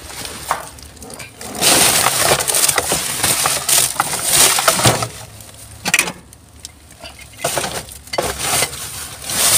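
Hands rummaging through rubbish in a dumpster: plastic bags and cardboard rustling and crinkling, and hard items clinking and knocking together. The rustling is loudest from about two to five seconds in, and scattered knocks follow.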